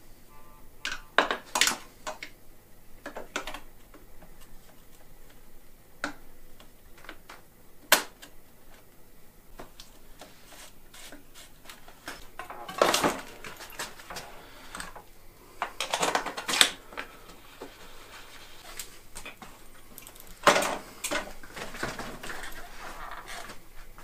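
Metal parts and tools being handled on a mountain bike's rear suspension linkage: scattered sharp clicks and knocks, with three longer rattling clatters, the first about halfway through and the others at about 16 and 21 seconds in.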